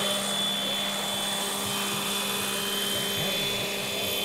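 Electric RC scale helicopter on Align T-Rex 500ESP mechanics, with a Scorpion brushless motor and a three-blade rotor head, flying low. Its rotor and motor give a steady whine.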